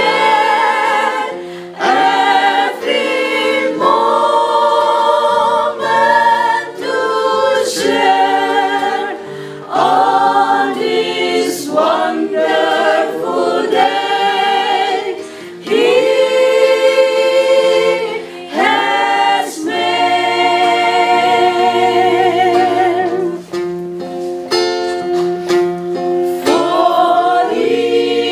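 Small mixed church choir singing with acoustic guitar accompaniment, in sung phrases with short breaks between them.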